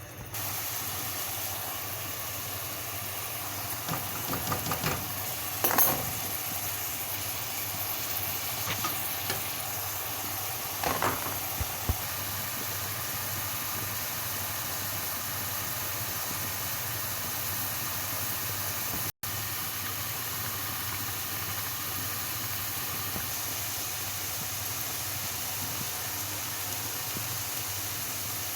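Food sizzling steadily in hot oil in a pan, with a few clinks and scrapes of a stirring utensil in the first twelve seconds or so.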